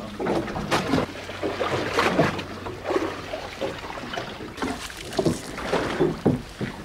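Sea water slapping and splashing irregularly against the hull of a small boat, with a low steady hum underneath that fades out about three seconds in.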